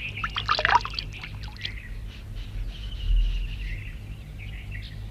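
Water poured from a clay pot and splashing over hands as they are washed, a cartoon sound effect that is busiest in the first second and then trails off into fainter trickling.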